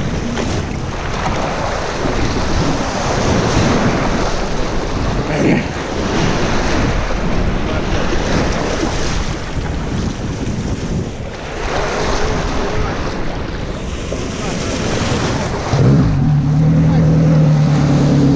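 River waves splashing and breaking over rocks, with strong wind buffeting the microphone. Near the end a steady low hum starts up.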